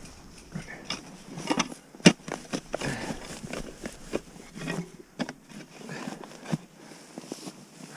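Irregular knocks, scrapes and rustles, with one sharp knock about two seconds in.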